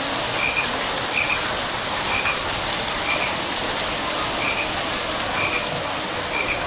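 Steady rush of a waterfall pouring into a pond, with a short high chirp repeating about once a second.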